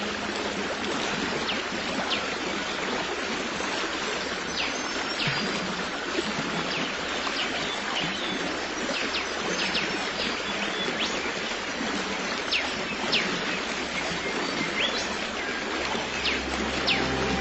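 Stream water running with a steady rush, with brief high bird chirps scattered throughout.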